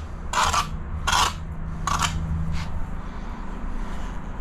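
Trowel scraping stiff tile adhesive in four short strokes about two-thirds of a second apart, the last one faint, over a low steady hum.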